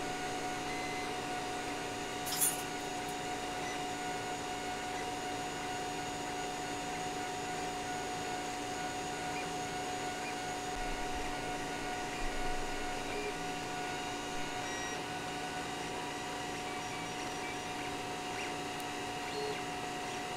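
CR-8 3D printer fitted with a 2.5 W laser module running a laser-cutting job: a steady fan hum with a constant whine, with short stepper-motor tones coming and going as the laser head steps between cut spots. One sharp click about two seconds in.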